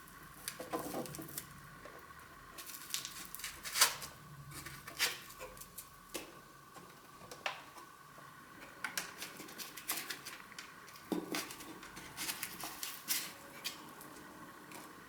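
Irregular clicks, taps and light rustles of a small plastic 3D printer and its packaging being handled during unboxing, over a faint steady tone.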